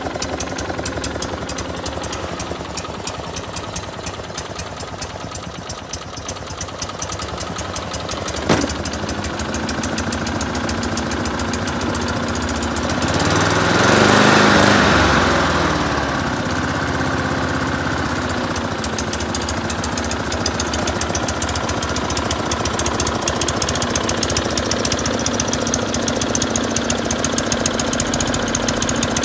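Ryobi 160 cc OHV four-stroke lawn mower engine running steadily with a fast, even firing beat. There is a sharp click about eight seconds in, and the sound swells louder for a couple of seconds near the middle before settling back to a steady run.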